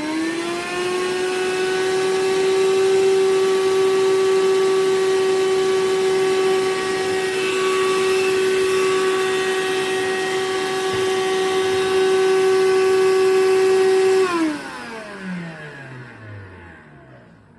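Cordless handheld vacuum's motor running with a steady whine, just finishing its spin-up at the start; switched off about fourteen seconds in, it winds down with a falling pitch.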